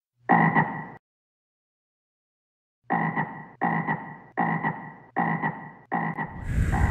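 Frog croaking: one croak, a pause of about two seconds, then a quick run of croaks about one and a half a second. Near the end a hiss and a low rumble rise under the croaks.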